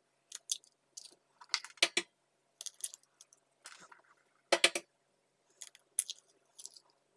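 Eggs being cracked by hand into a plastic bowl: a scattered series of sharp taps and crackles of eggshell, the loudest about four and a half seconds in.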